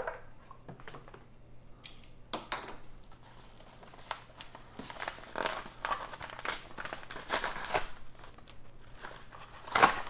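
Yellow padded mailer envelope being handled and opened by hand: irregular crinkling and crackling of the paper and padding, louder just before the end.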